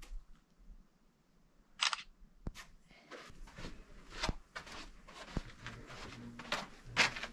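Footsteps scuffing and crunching on sand and sandstone, an irregular run of steps starting about three seconds in, after a short rustle and a click.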